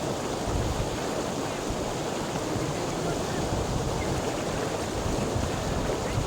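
Water flowing steadily: a continuous, unbroken rush of noise.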